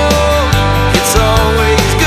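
Loud rock music: an instrumental stretch of a song between sung lines, with regular drum hits and sustained notes that bend in pitch.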